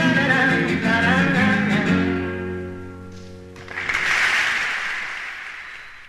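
Live acoustic guitar and singing end on a final chord that rings out and dies away. About four seconds in, audience applause breaks out and fades.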